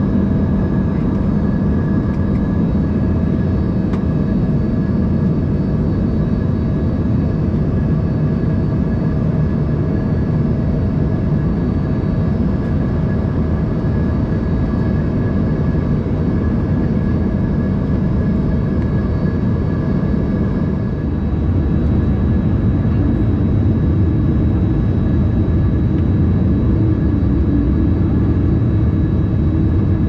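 Cabin noise inside an Embraer ERJ-145 in flight, flaps extended: a steady rumble of airflow and its rear-mounted Rolls-Royce AE 3007 turbofans, with a thin steady engine whine above it. About twenty seconds in, the rumble grows a little louder.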